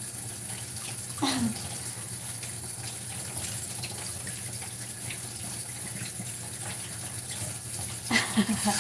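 Steady watery hiss of kitchen water, with a short vocal sound about a second in.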